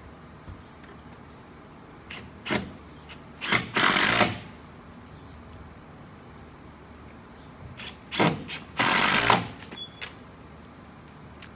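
Power drill driving screws in two goes, each a quick blip of the trigger followed by a run of about a second, mounting the door closer's bracket.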